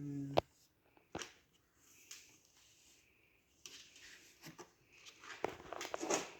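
Faint handling noises while mousse lube gel is applied to a foam mousse bib: a few sharp clicks and knocks, soft rustling, then a denser run of crackling, rustling sounds near the end.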